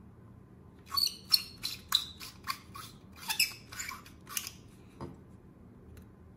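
Plastic scraping and clicking as an LED bulb's plastic base is twisted out of its plastic screw lamp socket: about ten short rasping strokes over three and a half seconds, then a soft knock.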